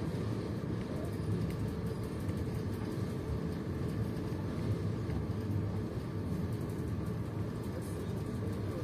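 Steady low rumble of a passenger train rolling along the track, heard from inside the carriage.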